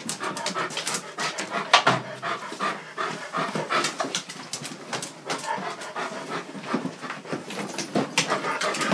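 Large Central Asian Shepherd dog panting quickly and heavily from excitement, with scattered knocks and rustles as it moves among shoes on a tiled floor.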